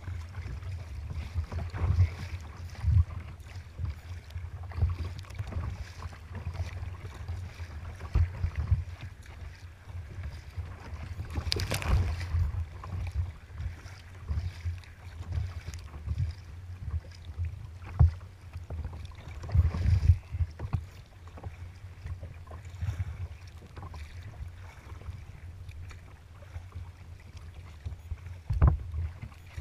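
Wind buffeting the microphone of a camera on a sea kayak's bow, with choppy waves slapping and splashing against the hull. Irregular sharper knocks and splashes come through, the loudest about twelve and twenty seconds in.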